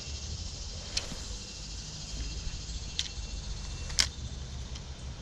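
A few sharp clicks from a spinning rod and reel being handled, three of them spaced out, the loudest about four seconds in.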